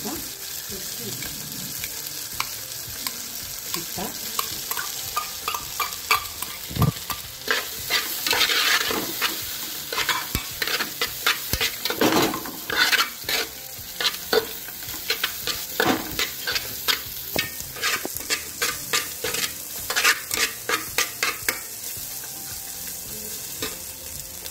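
Chicken and vegetables sizzling as they are stir-fried in a wide metal pan, with a metal utensil scraping and clacking against the pan many times from a few seconds in until near the end.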